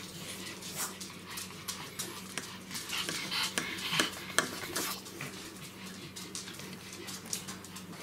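A knife cutting through a cheeseburger and its bun and scraping and clicking against a plate, with scattered sharp knocks. The clicks are busiest between about three and four and a half seconds in.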